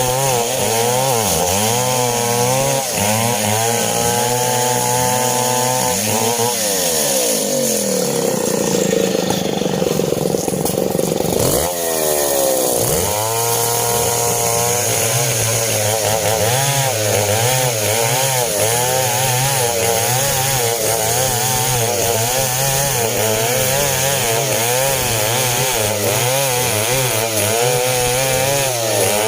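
Two-stroke chainsaw running at high revs, cutting coconut-palm timber. About six seconds in the engine pitch slides down as the saw eases off, and about twelve seconds in it revs back up and keeps cutting.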